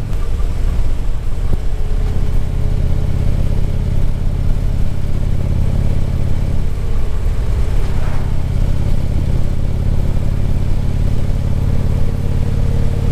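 Harley-Davidson V-twin motorcycle engine running at road speed, heard close up along with wind and road noise; a little past halfway the engine note changes briefly, then settles steady again.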